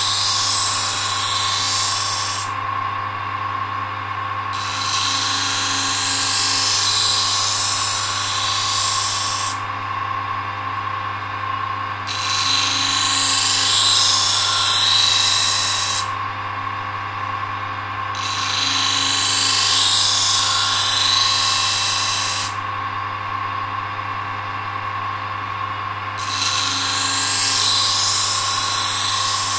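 Electric grinder running steadily while a knife blade is pressed to it in five passes, each a few seconds of loud hissing grinding with short pauses between: the broken tip and worn edge being reground.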